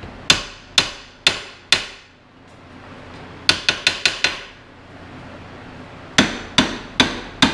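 Hammer blows on metal up behind a car's front wheel, knocking a stuck steering part loose: four strikes about half a second apart, a quick flurry of five in the middle, then steady strikes again near the end.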